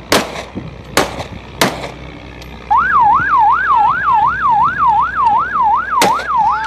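Three rifle warning shots within the first two seconds. Almost three seconds in, a siren starts yelping, its pitch rising and falling about three times a second, with one more shot about six seconds in.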